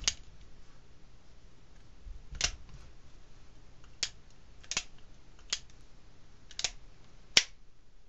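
Replica open-top single-action revolver's action being worked by hand: about seven separate metallic clicks a second or so apart as the hammer is cocked and the cylinder turns. One sharper, louder snap about seven seconds in is the hammer falling on an empty chamber, an accidental dry fire.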